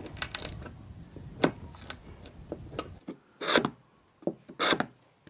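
Narrow steel tool scraping out the saw-cut channels in a wooden 2x2, in separate sharp strokes: several short ones, then two longer ones near the end.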